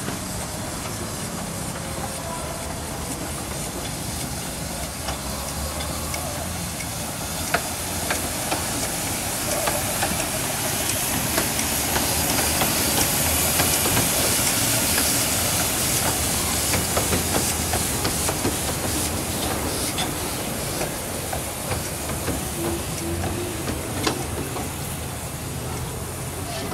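Small narrow-gauge steam locomotive hissing steam, with the running of the train on the rails and a few sharp clicks; the hiss grows loudest about halfway through.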